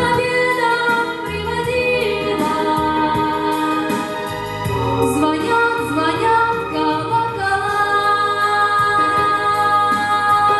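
A song with a woman singing over instrumental backing, her held notes bending in pitch about halfway through.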